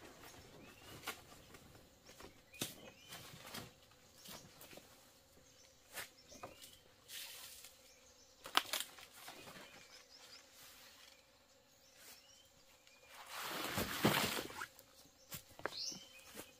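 Scattered light knocks and clicks with rustling, including a longer, louder rustling swish about thirteen seconds in, and a few faint short chirps.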